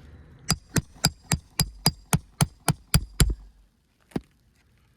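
Roofing hammer striking a metal roof snake to work a shingle nail loose: eleven quick, even blows with a slight metallic ring, about four a second, then a single blow near the end.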